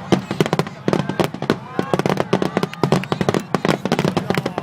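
Rapid, unbroken barrage of fireworks, with bangs and crackles following one another several times a second.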